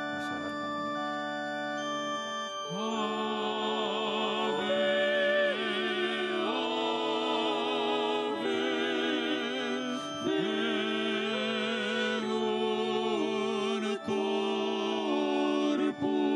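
Organ holding steady chords, joined about three seconds in by a solo singer with strong vibrato singing a slow communion hymn, with brief pauses between phrases.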